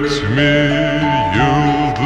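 Slowed-down, reverb-heavy song: a deep, lowered male voice sings long, wavering notes over a held instrumental line that climbs in steps.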